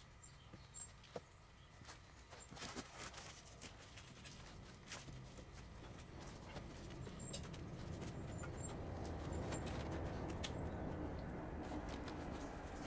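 Scattered clicks and knocks of someone moving about on a leafy forest floor. A low rumble builds up about halfway through and stays to the end.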